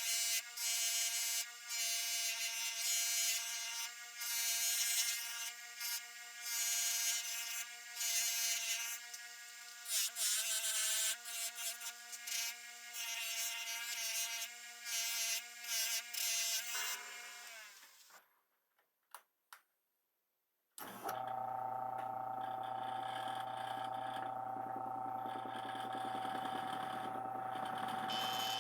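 Electric polishing wheel running steadily, with repeated bursts of scrubbing noise as the metal handguard and pommel are pressed against the buffing wheel. About 17 seconds in the motor spins down with a falling pitch, and after a few seconds of dead silence a polishing motor runs steadily again.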